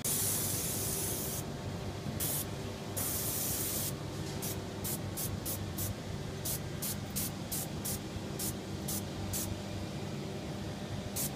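Paint spray gun hissing in bursts as the trigger is pulled: two long sprays of about a second each, then a quick run of short pulls, about three a second, and one more near the end. A steady low hum runs underneath.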